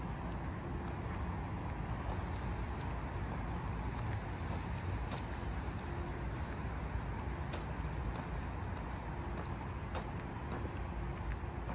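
Steady low rumble of distant road traffic, with scattered faint ticks.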